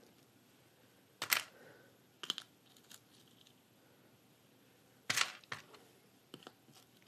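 Scattered sharp clicks and clinks of small art glass mosaic pieces being picked up and set down on the glass backing, about seven in all, the loudest a little over a second in and about five seconds in.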